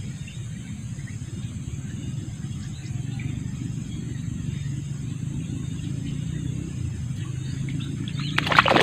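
Steady outdoor background of a low rumble, a high insect drone and a few bird chirps. Near the end comes a sudden loud splash as a hooked snakeskin gourami thrashes at the water's surface.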